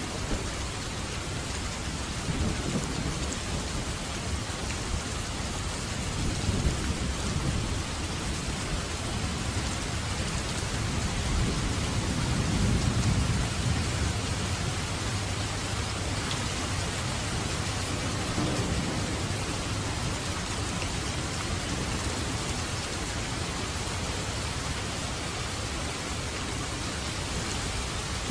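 Heavy rain falling steadily, with low rolling thunder rumbling several times and loudest about halfway through.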